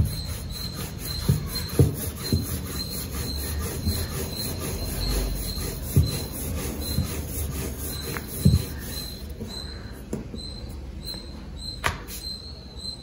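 Wooden rolling pin rolling out wheat paratha dough on a wooden table: a low rolling rumble with several dull knocks as the pin bumps the tabletop. A faint high pulse repeats a few times a second throughout.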